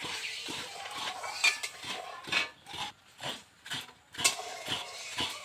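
A metal spoon scraping and clinking against an iron kadai as hot water is stirred, in a string of short irregular strokes about two a second.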